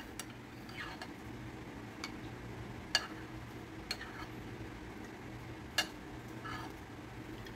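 Metal spoon clinking against a ceramic soup bowl while broth is scooped: a handful of light clinks, with louder ones about three and six seconds in, over a faint steady low hum.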